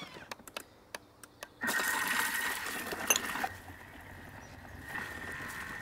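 A few clicks from the Thermomix TM5's selector dial being turned, then its motor starts at speed 3 and runs with a steady whine, churning the liquid hollandaise base of eggs, lemon juice and wine. The churning is loudest for about two seconds and then settles a little quieter.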